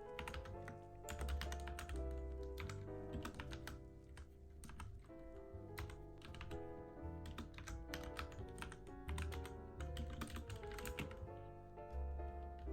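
Mechanical keyboard typing in quick, irregular runs of keystrokes with short pauses, over soft background music of held notes and a low bass line.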